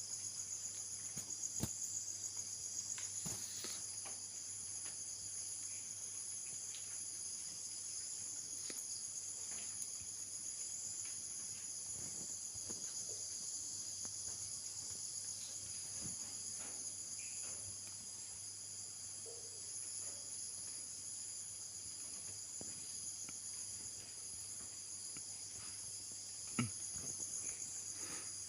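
Insects trilling in a steady, high-pitched chorus, with a faint low hum and scattered faint clicks underneath; one louder knock comes near the end.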